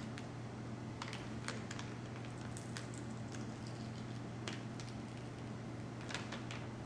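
Scattered small clicks and crackles of a laptop LCD panel being pried and peeled off its strong adhesive, over a steady low hum.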